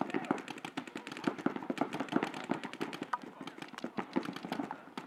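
Paintball markers firing from several players at once: rapid, overlapping strings of sharp pops.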